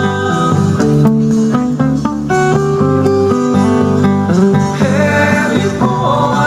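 Hawaiian hula song music with plucked guitar playing an instrumental passage between sung verses.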